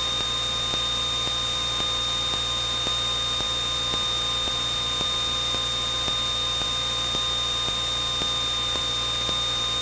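Steady low hum and hiss with a constant high-pitched whine: the background noise of a Cessna 172N's cockpit audio as picked up through the intercom and headset feed during the landing approach.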